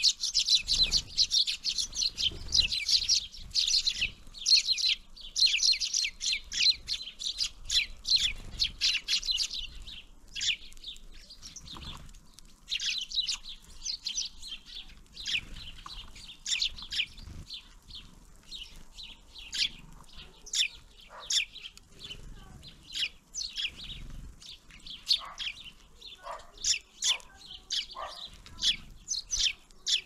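Small birds at a winter feeder chirping and calling: a dense, overlapping chatter of short high chirps for about the first ten seconds, thinning to scattered calls after that, with some soft low thumps underneath.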